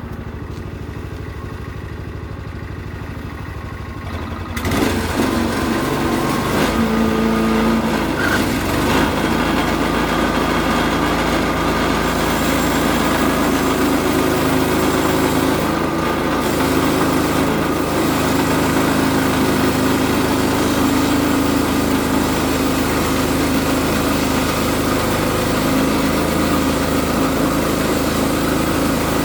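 Portable band sawmill's engine running at idle, then throttled up about four and a half seconds in to a louder, steady full-speed run as the band blade is driven.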